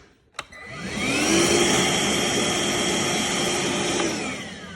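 Ryobi 1-gallon wet/dry vac switched on with a click, its motor spinning up to a steady whine, running for about three seconds, then winding down near the end. It is powered by a Milwaukee M18 battery through an adapter.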